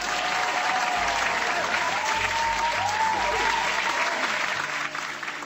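Recorded applause sound effect played back: a crowd clapping, with a few wavering whistle-like tones in it, starting abruptly and cutting off at the end. Soft background music runs underneath.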